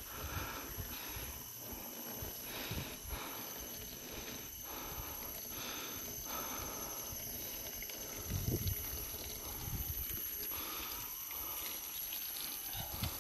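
Forest ambience: a steady high-pitched insect drone over a constant hiss, with gusts of wind buffeting the microphone, loudest about eight seconds in. Irregular crunching and rustling of footsteps through dry cut brush and branches.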